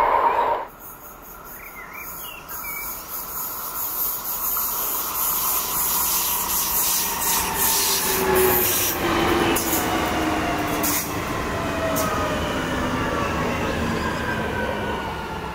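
Västtrafik X61 electric multiple unit approaching and running past along the platform: steady wheel-on-rail noise with an electric whine that falls slowly in pitch over the second half. A louder train sound cuts off suddenly in the first second.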